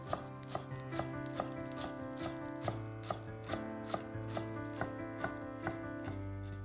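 Knife chopping vegetables on a cutting board in an even rhythm, a little over two chops a second, over instrumental background music.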